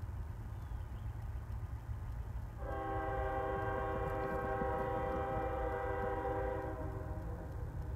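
A locomotive's air horn sounds one long blast of about four seconds, a chord of several notes held steady, from a train not yet in sight, starting a little under three seconds in.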